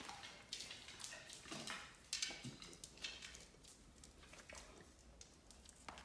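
A brindle pit bull walking on a hard floor, its claws clicking and tapping in irregular steps.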